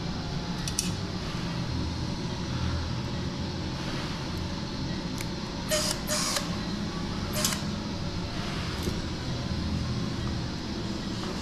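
Steady low mechanical hum of room background noise, with a few short metallic clicks and clinks from surgical instruments and the drill being handled: one about a second in, a quick pair around six seconds in, and another at seven and a half seconds.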